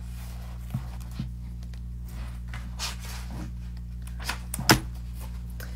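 Pages of a paperback book being leafed through: several short papery rustles and flicks, the sharpest near the end, over a steady low hum.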